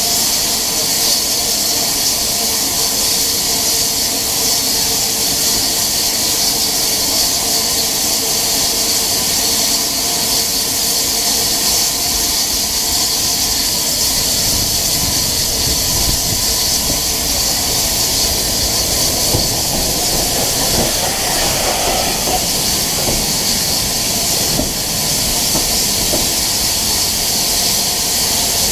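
Steady steam hiss from a standing BR Standard Class 9F 2-10-0 steam locomotive. From about halfway another steam train's wheels and coaches pass close alongside on the next track, adding a rumble of running gear.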